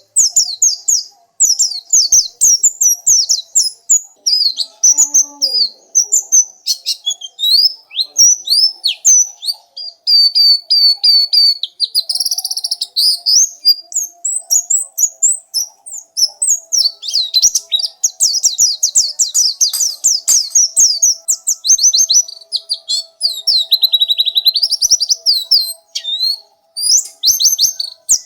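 Pleci (white-eye) singing a fast, nearly continuous run of high chirps and warbling trills, with only short breaks.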